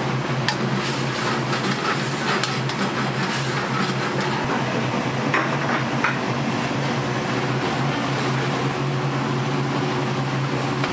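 Food sizzling as it cooks, with a few clinks and knocks of metal utensils and dishes in the first half, over a steady low hum.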